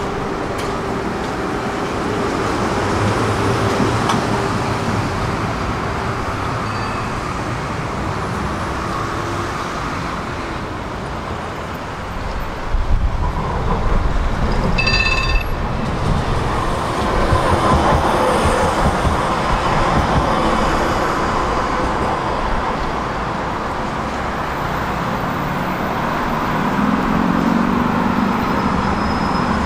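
Warsaw tram running on its rails: a steady rumble of wheels and track with a traction-motor whine. A short ringing signal sounds about halfway through, and the motor whine rises in pitch near the end as the tram speeds up.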